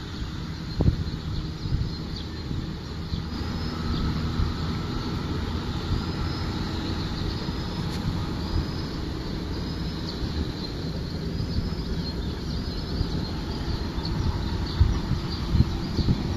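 Outdoor ambience by a pond: a steady low mechanical hum with wind rumbling on the microphone now and then, and small birds chirping faintly throughout.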